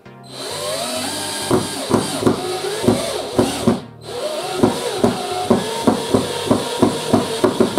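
Black+Decker BCD003C2K 18V cordless hammer drill driving a long screw into a wooden post. The motor spins up twice under load, and each time a regular knocking follows, about three knocks a second at first and quicker near the end.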